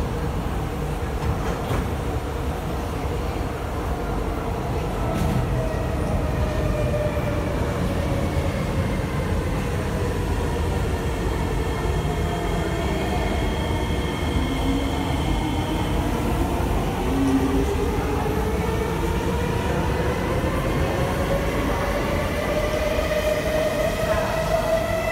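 SMRT C151A electric metro train pulling away from the platform, with a low rumble and a whine from its traction motor drive. The whine falls steadily in pitch through the first half, then rises again toward the end as the train gathers speed.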